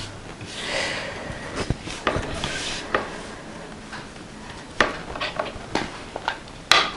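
Paper cutouts being picked up, slid together and set down on a table: soft rustling with scattered light taps and clicks. Near the end comes a sharper click as a plastic ink pad case is handled.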